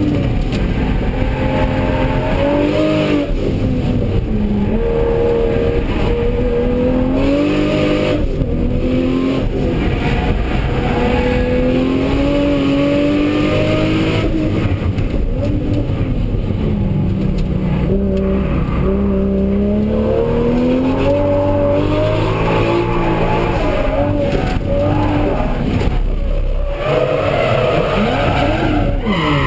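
Toyota Supra (JZA80) race car engine heard from inside the cabin, rising in pitch as it accelerates and dropping back at each gear change. About halfway through it falls away and runs low for several seconds as the car slows, then climbs again.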